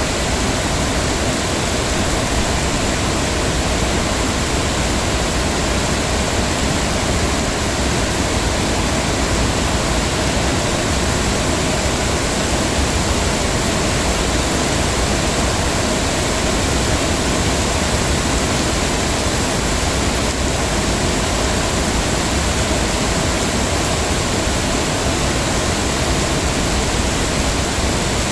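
Heavy rain falling steadily, an even dense hiss with no breaks.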